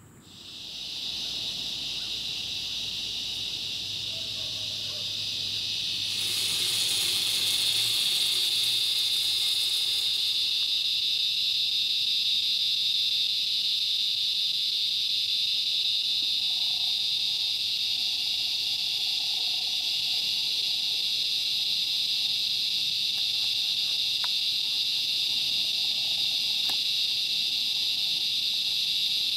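Dense chorus of insects in the woods at dusk, a steady high-pitched buzz with no break; from about six to ten seconds in, a louder rushing hiss joins it.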